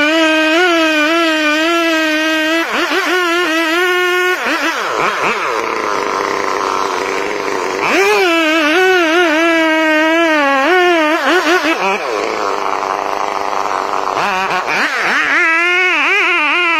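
Two-stroke chainsaw running at high revs as it cuts into a giant tree trunk, its pitch wavering under load. The engine note drops away about four seconds in and again around twelve seconds, then climbs back up.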